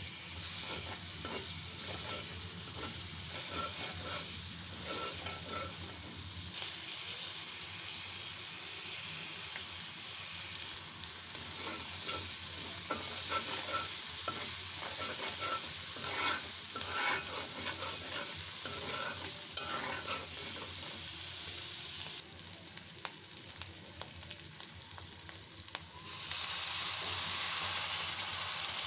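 Spice paste frying in hot oil in a karahi, sizzling steadily while a metal spatula stirs and scrapes the pan. About three seconds before the end, water goes into the hot pan and the sizzle jumps suddenly louder.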